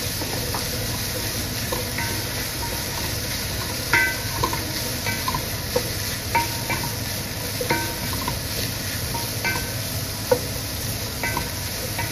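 Beef tripe and meat sizzling as they are sautéed with onion, garlic and ginger in a stainless steel pot, stirred with a wooden spatula. The spatula knocks against the pot with short ringing clinks, irregularly about once a second.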